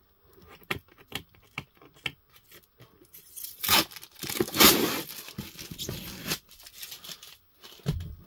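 Clear packing tape being cut and then ripped off a cardboard box. A few light clicks and scrapes, then about three and a half seconds in a loud tearing rip as the tape peels from the cardboard, followed by softer rustling and a couple of low thumps as the box is handled near the end.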